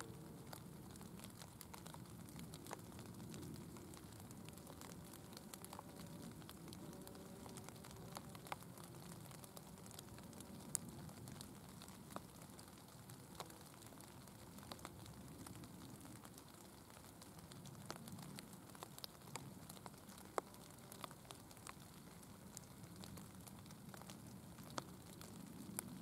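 Near silence: faint outdoor background with a low rumble and scattered soft ticks.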